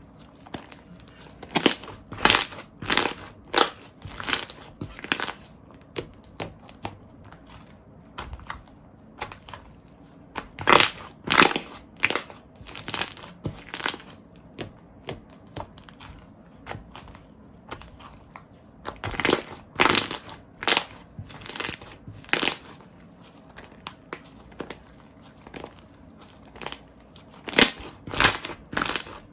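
Slime being squeezed and pressed by hand, giving clusters of sharp pops and crackles in bursts every several seconds, with quieter squishing between.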